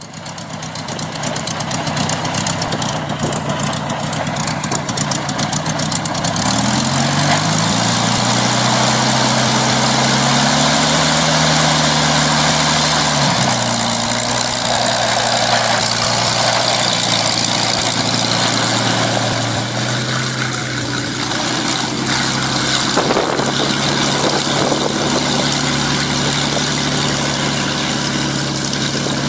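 Supermarine Spitfire's Rolls-Royce Merlin V12 engine running on the ground, with heavy rushing noise over it. It revs up about a quarter of the way in, holds there for several seconds, then drops back to a steady lower run as the aircraft taxis off across the grass.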